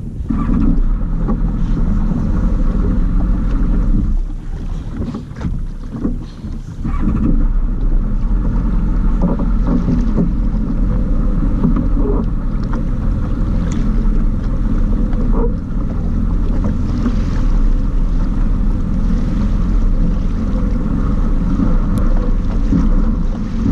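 Personal watercraft (jet ski) engine running under way, a steady drone with water and wind on the microphone; it drops off for a few seconds about four seconds in, then comes back up and holds steady.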